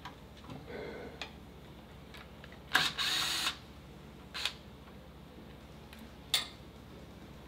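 A cordless power driver is run in one short burst about three seconds in, working a bolt at the motorcycle's fuel tank. Two brief sharp clicks follow later.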